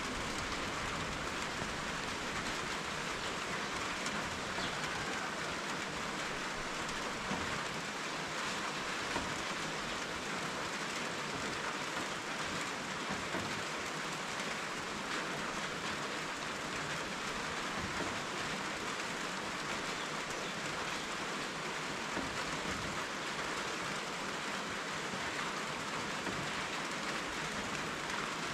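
Steady rainfall, an even hiss that does not let up, with a few faint scattered drip ticks.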